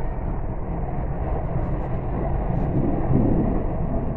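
Dubai Metro Red Line train running between stations, heard inside the carriage: a steady low rumble of wheels and running gear on the track, swelling slightly about three seconds in.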